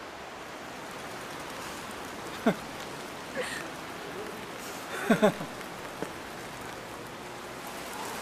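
Steady rain-like hiss with a few short, breathy vocal sounds from a person that fall in pitch: one about a quarter of the way in, another soon after, and a louder pair about two-thirds of the way through.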